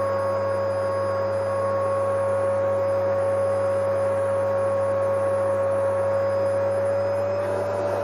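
Vacuum cleaner running steadily: a constant motor whine over the rush of air, with a low hum beneath. The whine's pitch rises slightly near the end.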